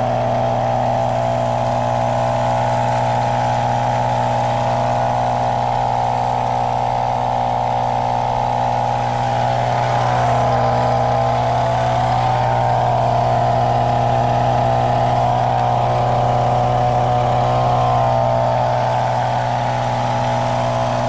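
Steady engine and road drone heard inside a moving car's cabin, holding an even pitch.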